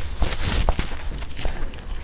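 Close-miked chewing of a mouthful of egg masala, with wet mouth clicks and smacks.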